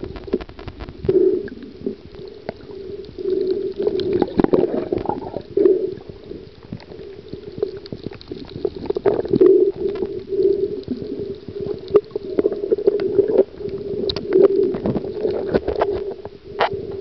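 Underwater sound picked up by a camera in its waterproof housing: muffled, irregular bubbling and gurgling, with many sharp clicks.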